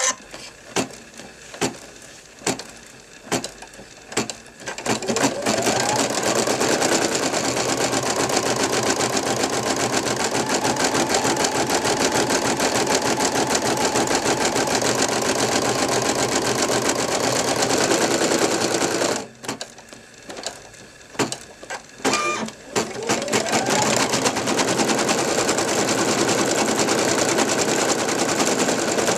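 Brother NV2600 computerized embroidery machine stitching a design, starting a new thread colour. It makes a few slow single stitches, then speeds up with a rising whine into fast, steady stitching. About 19 seconds in it stops abruptly, makes a few more slow single stitches, and speeds up again into fast stitching.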